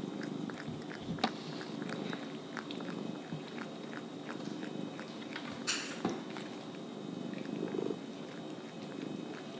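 Domestic cat purring steadily while biting and chewing a raw whole quail, with many small wet chewing clicks and one louder, sharper click about six seconds in.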